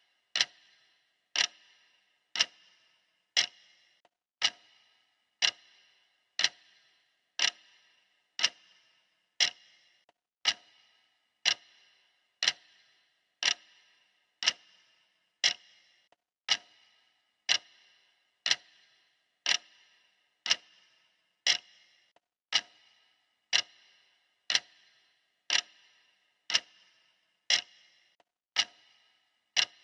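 Clock ticking steadily, one sharp tick every second.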